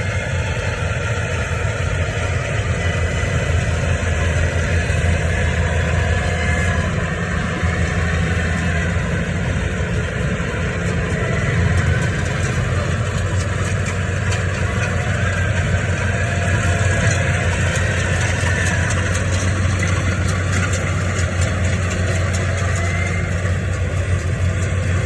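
Yanmar 820 rice combine harvester's engine running steadily, an even low hum without pauses.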